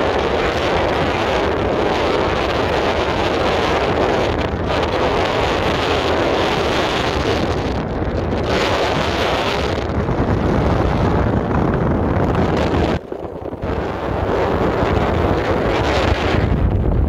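Wind buffeting the microphone, a dense rushing noise, with a vehicle running underneath; the noise drops away briefly about 13 seconds in.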